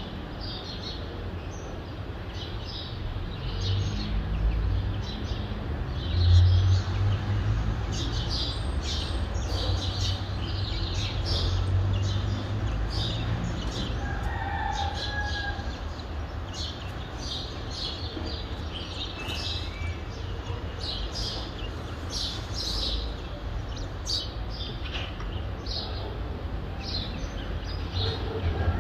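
Dawn chorus of small birds chirping rapidly and repeatedly over a steady low rumble of distant city traffic. A few brief, lower calls stand out about halfway through.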